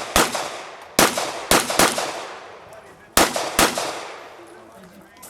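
Six gunshots fired in quick, uneven succession, each with a short echo trailing off: two about half a second apart near the start, then two more close together, and a last pair after a pause of about a second and a half.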